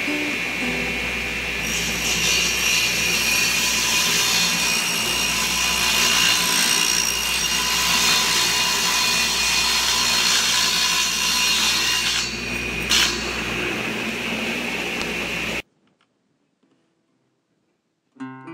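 A table saw runs and rips an old barnwood board, with the motor's steady whine under the noise of the blade cutting the wood. The cutting gets louder about two seconds in and eases near the end, followed by a short click. The sound then stops abruptly, leaving a couple of seconds of near silence.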